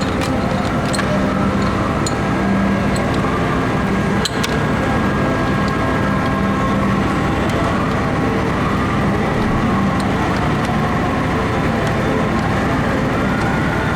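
Steady background hum of running machinery, with a few light metallic clicks from bolts and the plate being handled.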